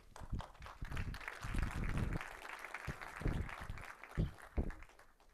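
Audience applauding, the clapping thinning and dying away near the end, with a few short low thumps.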